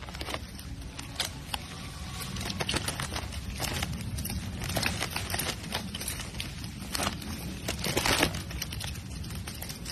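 Plastic snack wrappers crinkling and rustling in irregular bursts as monkeys grab at a pile of packets and bananas, over a steady low background noise.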